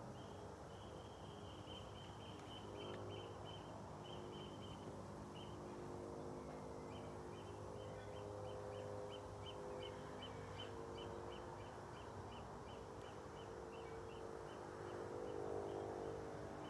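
A bird calling in the garden: long runs of short, high notes repeated about three times a second, over a faint low hum.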